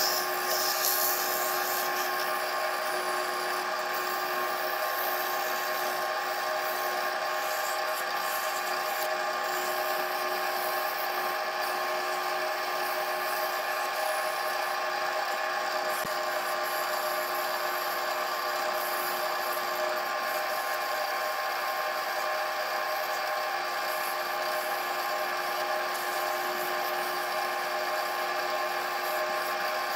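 Wood lathe motor running at a steady pitch, with a hand-held pad rubbing against the spinning spalted cherry goblet as it is sanded or finished. The rubbing is brightest in the first couple of seconds.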